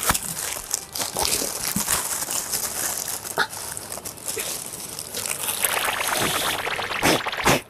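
Thin tissue-paper wrapping rustling and crinkling without a break as it is pulled away from a statue, with a few sharper crackles near the end.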